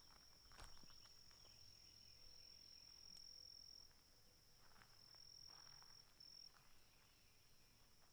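Faint, steady high-pitched insect trill that breaks off briefly twice in the second half, with a few soft footsteps.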